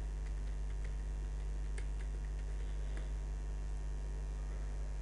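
Computer keyboard keys clicking as a username and password are typed in: a scattered run of clicks over the first three seconds, then they stop. A steady low electrical hum runs underneath.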